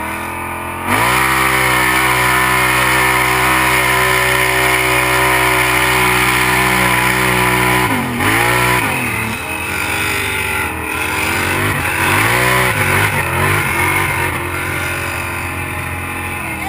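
Kawasaki Brute Force 750 ATV's V-twin engine with a Muzzy exhaust, jumping to high revs about a second in and holding steady. Around eight seconds in the revs drop, then rise and fall repeatedly with the throttle.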